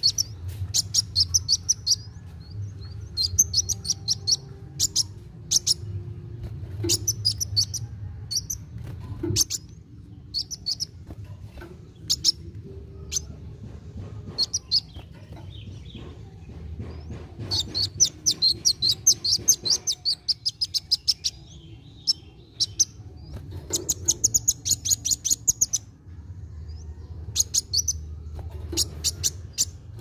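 Caged male Van Hasselt's sunbird (kolibri wulung) singing. It gives bouts of fast, high chittering trills, with single sharp chips between them, over a steady low hum.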